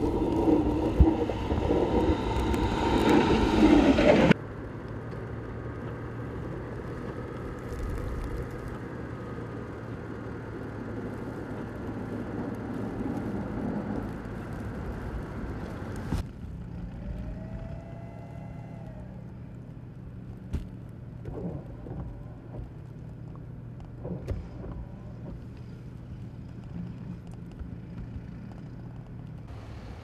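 A snowplow truck's engine running as its front blade pushes and scrapes through snow, loud for the first four seconds. After a sudden cut comes a quieter steady engine hum, with a short rising-and-falling whine and a few faint knocks later on.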